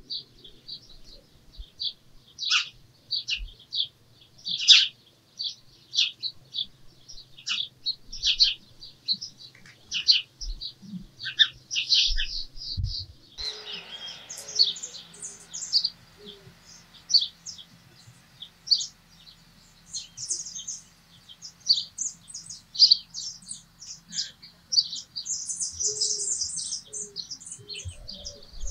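Small birds chirping: a dense run of short, high chirps. About halfway through, the background changes to a faint steady hiss, with a few low short notes under the chirps.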